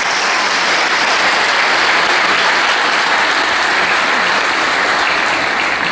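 Audience applauding, a steady wash of clapping that begins to die down at the very end.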